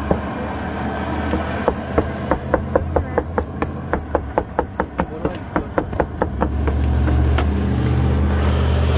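Large knife chopping cooked beef head meat on a plastic cutting board: a quick, even run of sharp knocks at about four a second, stopping about two-thirds of the way through. A steady low hum comes up as the chopping ends.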